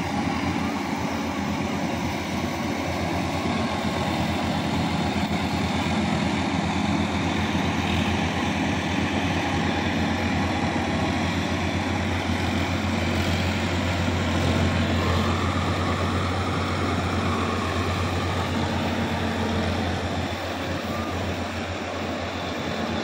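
Tractor diesel engine running steadily while working a flooded paddy field, a low hum with a fast even pulse that eases off a little near the end.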